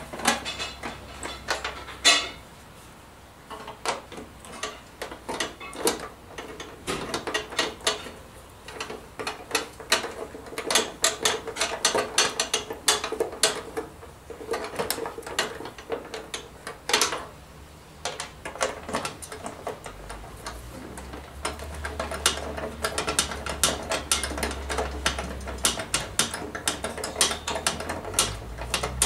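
A ratchet wrench clicking in quick runs with short pauses as nuts are turned on the steel threaded rods of a radio mounting bracket, with occasional metal clinks of the tool.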